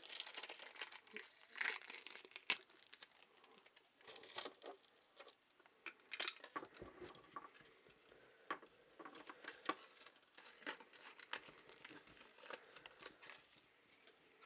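Adhesive tape being peeled and plastic wrapping crinkling and tearing as packaging is pulled off a resin figurine by hand: faint, scattered crackles and ticks.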